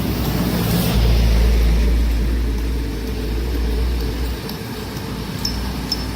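Large excavator's diesel engine running under load with a deep, steady rumble that swells about a second in and eases off a little past the middle. A few short, light clicks come near the end.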